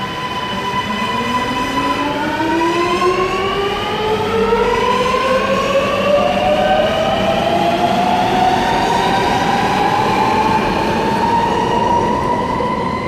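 Alstom Metropolis metro train pulling away: its traction motors give a whine of several tones that rises steadily in pitch as the train accelerates, over the rumble of the train.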